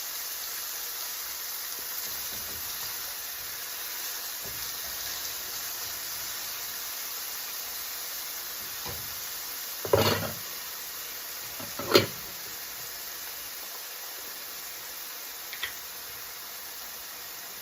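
Diced peppers and red onion sizzling steadily in olive oil in a skillet. Two sharp knocks come about ten and twelve seconds in, and a faint tap comes near the end.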